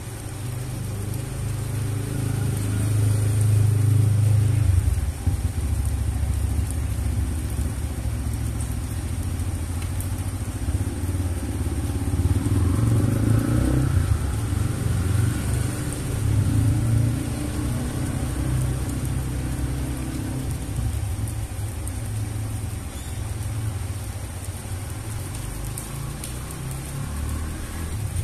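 Steady rain on wet pavement under a low engine rumble from a motor vehicle, which swells about four seconds in and again around the middle, with a brief rise in pitch.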